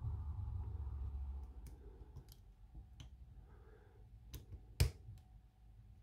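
Sparse small metallic clicks of a lock pick working the pins of a padlock's ABUS cylinder under heavy tension, the sharpest click a little before five seconds in. A low rumble fades out in the first second and a half.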